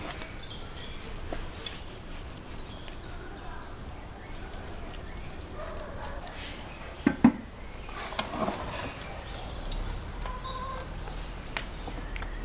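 Hands peeling and pulling apart boiled beef tongues on a wooden board, with a sharp double knock a little past halfway and a smaller one just after. Faint bird calls in the background.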